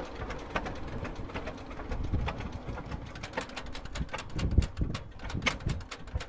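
1938 John Deere unstyled Model G's two-cylinder engine idling slowly with an uneven popping beat.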